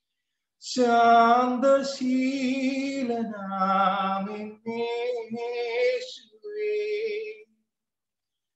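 A man singing a Malayalam Christian devotional song unaccompanied, in phrases with long held notes and vibrato. The voice breaks off into silence between phrases, once near the end.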